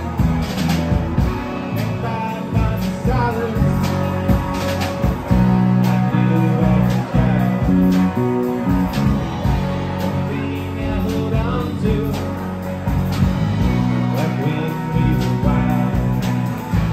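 Live rock band playing electric guitars, electric bass and a drum kit, with loud sustained bass notes under a steady drum beat and guitar lines.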